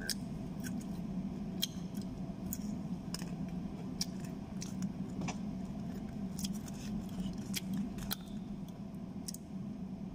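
Scattered small sharp clicks and ticks, irregular and a few each second, over a steady low room hum.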